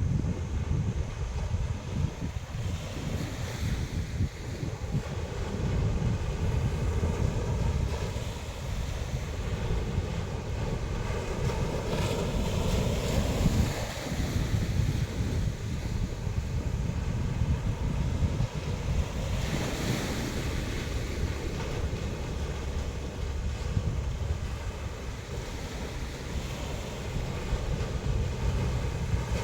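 Sea waves washing onto the shore, with wind buffeting the microphone in a steady low rumble. The surf swells louder about twelve seconds in and again near twenty seconds.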